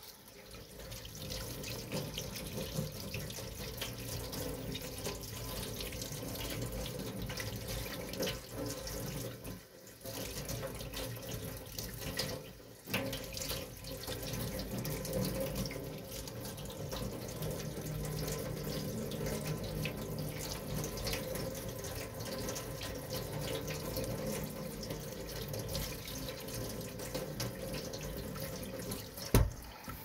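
Tap water running from a kitchen faucet into a stainless steel sink, splashing over a frog held in the hands as it is rinsed. The flow sound dips briefly twice, and there is a sharp knock just before the end.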